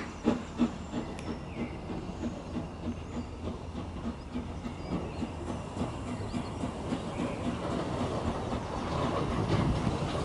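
Steam locomotive approaching on the loop line as it runs round its train: an even rhythmic beat, growing louder and noisier toward the end as it draws near.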